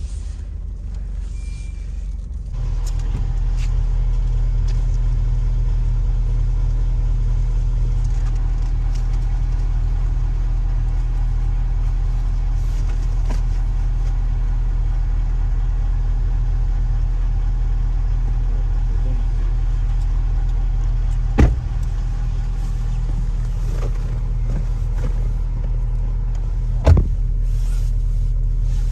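Mitsubishi Pajero Sport (second generation) engine idling while warming up, a steady low rumble heard from inside the cabin; it gets louder about two and a half seconds in. Two short thumps come near the end, about five seconds apart.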